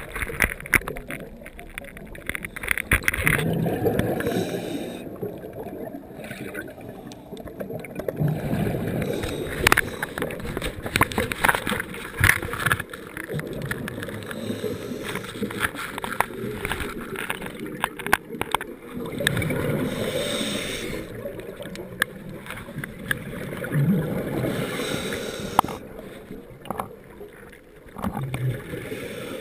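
Scuba diver breathing through a regulator underwater: a rush of exhaled bubbles swells up every few seconds, with scattered sharp clicks between breaths.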